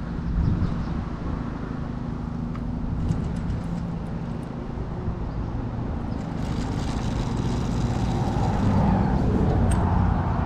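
A motor engine running steadily close by, growing louder over the last few seconds, with a few faint ticks over it.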